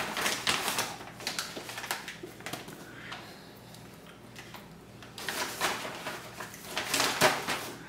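Plastic potting-soil bag crinkling and rustling as it is handled, in two spells of noisy rustling, the first from the start to about three seconds in and the second from about five to seven and a half seconds in.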